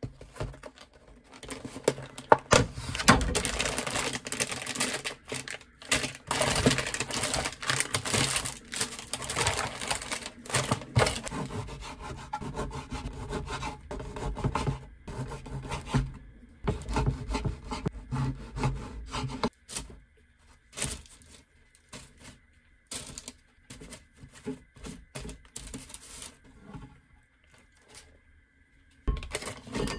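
Crinkly plastic food packaging being handled, then a serrated bread knife sawing through a crusty baguette on a wooden cutting board, with scratchy strokes and light knocks on the board. The sounds thin out to scattered clicks and taps in the later part.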